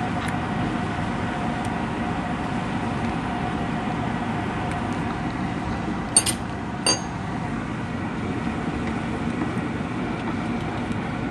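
Macaroni boiling hard in water in a pan on a gas burner: a steady bubbling rumble. A little past halfway a metal spoon clinks sharply against the pan twice, less than a second apart.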